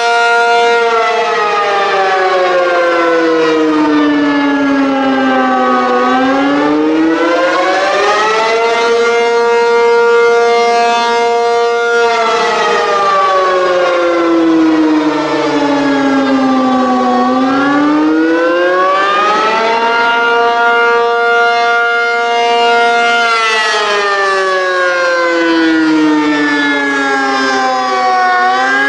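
ACA P-50 electromechanical tornado siren sounding the attack signal. Its pitch winds down slowly over about five seconds, climbs back over two or three seconds, then holds at the top for a few seconds before winding down again, about two and a half wails in all.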